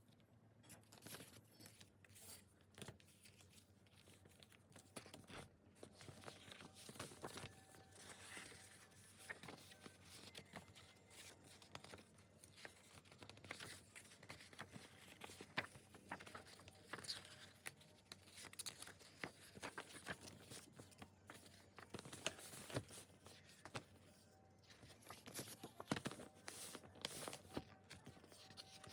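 Faint rustling, crinkling and tearing of album packaging being unwrapped and handled, with scattered clicks and taps.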